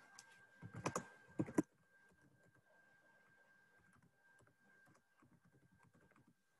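Computer keyboard typing: a few louder clicks in the first two seconds, then a run of soft, rapid keystrokes. A faint steady high tone runs underneath.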